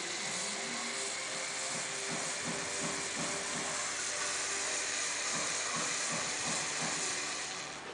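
A motor drives the drivetrain of a LEGO Technic truck model through its two-speed manual gearbox and driveshafts with a steady whir. From about two seconds in there is a soft clicking of turning gears at a few per second, and the whir fades out near the end.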